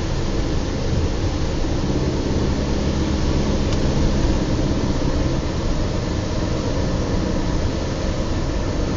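Car driving at a steady speed, heard from inside the cabin: a steady engine hum under continuous tyre and road noise.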